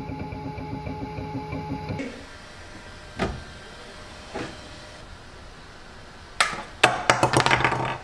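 Bambu Lab X1 Carbon 3D printer's motors whirring in a fast, stuttering pattern as it prints, stopping about two seconds in. After a couple of light clicks, there is a burst of clattering and rattling near the end as the build plate is pulled out and handled.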